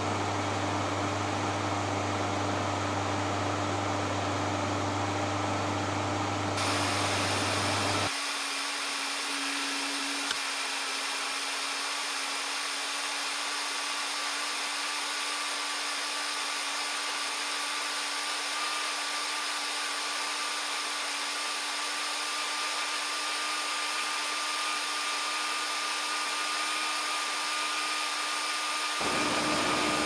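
Steady in-cabin noise of an AE86 with the air-conditioning blower running and the five-valve 4A-G engine idling. About eight seconds in, the sound jumps to a thinner, higher-pitched steady whir because the recording is played at four times speed.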